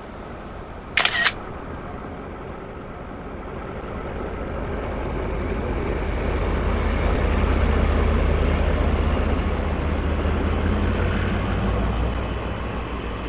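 Diesel locomotive hauling passenger coaches passing close by: a low engine rumble with wheel-on-rail noise that builds to a peak about eight seconds in and then eases a little. A short sharp burst sounds about a second in.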